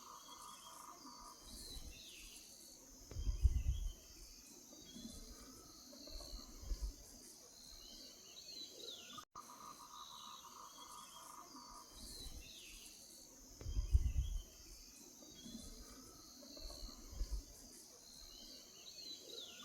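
Outdoor nature ambience: a steady high insect chorus with scattered bird chirps. A brief low rumble comes twice, and it is the loudest thing heard; the same stretch of ambience plays through twice.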